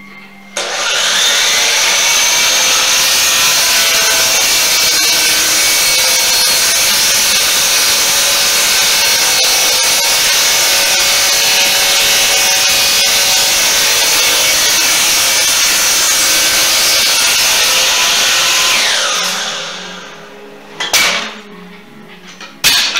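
DeWalt sliding compound miter saw (chop saw) starting up and running steadily while its blade cuts wood, then spinning down after about nineteen seconds. Two sharp knocks follow near the end.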